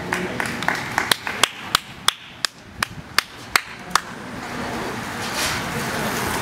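A run of sharp, evenly spaced claps or knocks, about three a second, that stops about four seconds in. Then a rising rush of noise as the main pack of racing bicycles sweeps into the corner.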